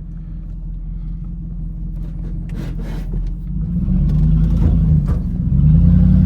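Hemi V8 of a third-generation Dodge Ram heard from inside the cab, running at a low rumble while crawling off-road, then revving up twice, once about three and a half seconds in and again near the end. A few short knocks and rattles come from the truck working over rough ground.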